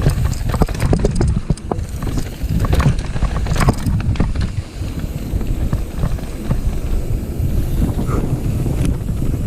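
Mountain bike descending a rough trail at speed: steady wind rush on the microphone, with the bike's rattling, knocking clatter over roots and rocks, dense in the first half and easing toward the end.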